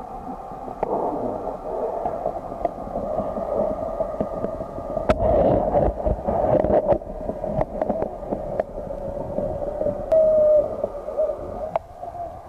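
Muffled underwater sound picked up by a submerged camera: a steady hum of moving water with scattered sharp clicks and knocks, busiest about five to seven seconds in.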